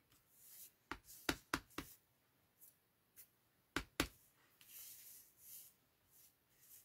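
Stamp tapped down onto an ink pad and card stock in sharp taps: four quick ones about a second in, two more about four seconds in, with soft paper rustling between.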